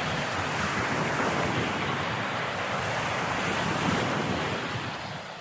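Steady rushing noise of wind and water, fading out near the end.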